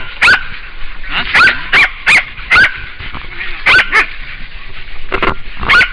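Hunting dogs barking in sharp, loud barks, in irregular bunches of two or three, as they hold a wild pig at bay.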